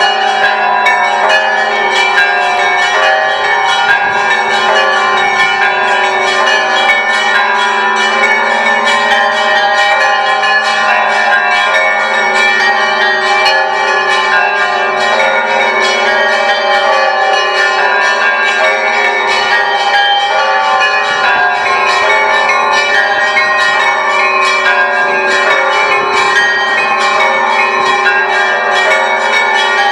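Orthodox church bells of the Great Lavra Bell Tower rung together: rapid, continuous strikes of the small bells over the steady hum of the larger bells, loud and unbroken.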